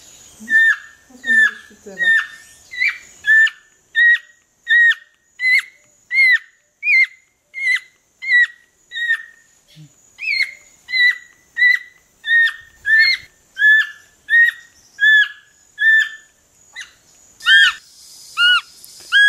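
Young capuchin monkey giving a steady run of short, high-pitched whistling distress cries, about one and a half a second. After a cut near the end the cries come a little lower in pitch.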